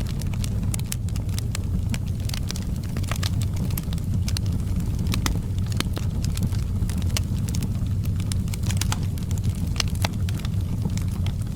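Wood fire burning in a fireplace, crackling with frequent sharp, irregular pops over a steady low rumble of the flames.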